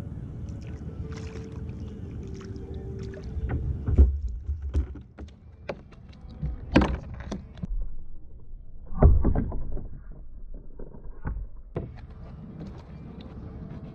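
Water and wind rumbling on a kayak-mounted microphone, with a few sharp knocks and clatters, loudest about four, seven and nine seconds in, as an angler handles his spinning rod and reel while fighting a fish from the kayak.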